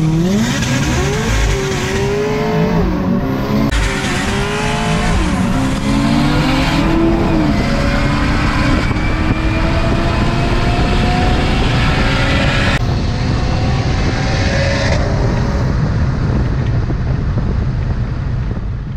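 A performance car's engine accelerating hard at full throttle, heard from inside the cabin. The pitch climbs and breaks at quick gear changes in the first few seconds, then rises in long steady pulls through the higher gears.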